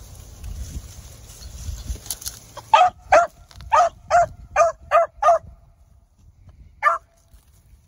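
Young beagle hound barking on a rabbit's trail: seven short, clipped barks in quick succession at about two a second, then one more after a pause of about a second and a half.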